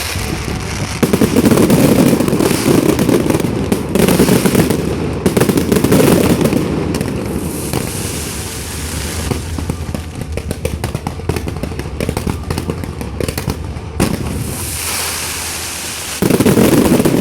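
Fireworks going off: rapid bangs and crackling, loudest in dense barrages during the first several seconds and again near the end.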